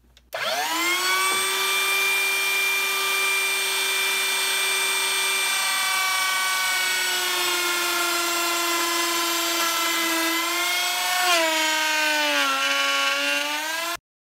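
Table-mounted router starts up and winds up to speed, then runs with a steady high whine. Its pitch sags a little midway and more near the end as the bit cuts a rabbet into a tiger maple door frame. It cuts off suddenly.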